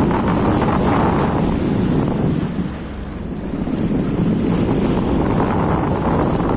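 Sea-Doo jet ski running on the water, its engine and water rush buried under heavy wind buffeting on the microphone. The noise eases briefly about halfway through, then picks up again.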